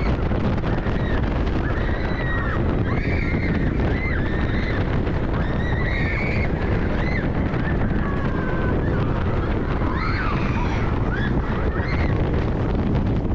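Iron Gwazi hybrid roller coaster at speed: loud wind rushing over the on-ride camera, with riders screaming over it in many short rising and falling cries.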